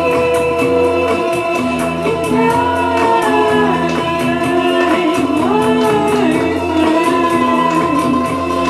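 Live music: a woman singing long, gliding notes into a microphone over laptop-played electronic backing with sustained tones and a steady ticking beat.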